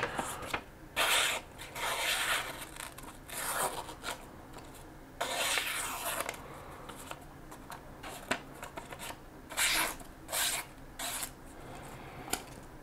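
Freshly sharpened kitchen knife making test slicing cuts: about half a dozen short rasping swishes with pauses between them, the longest about five seconds in.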